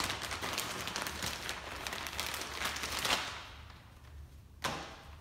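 Clear plastic zip-top bag crinkling as it is handled for about three seconds, then a single knock near the end.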